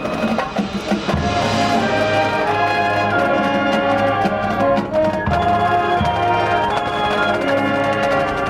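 High school marching band playing: brass holding loud sustained chords over steady drum and percussion strikes.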